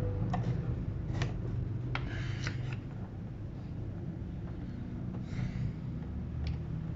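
A few light clicks and rustles of wire connectors being handled and plugged back into an amplified speaker's circuit board, over a low steady hum.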